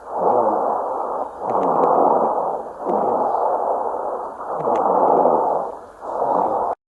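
Lung auscultation recording of rhonchi: low-pitched, coarse, snore-like breath sounds heard in both inspiration and expiration, swelling and fading through about five breath phases before cutting off suddenly near the end. The sound is a sign of air moving roughly through secretions in the large airways, as in acute or chronic bronchitis.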